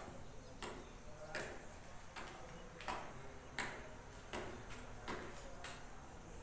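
Faint, evenly spaced ticking, about one tick every three-quarters of a second, in a quiet room.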